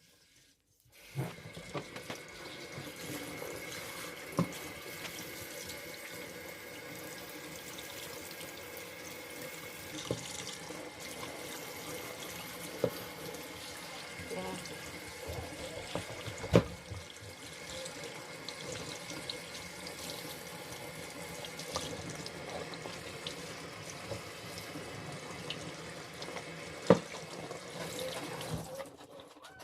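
Wonderchef Maxima wet grinder running steadily, its stones turning through wet batter with a swishing, watery sound and a faint motor hum, with a few light clicks. It starts about a second in and stops just before the end.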